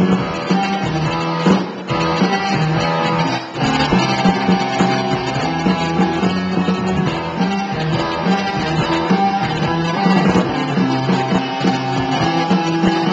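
Live rock band playing through a concert PA, with electric guitars to the fore, heard from within the audience. The music dips briefly twice, about two and three and a half seconds in.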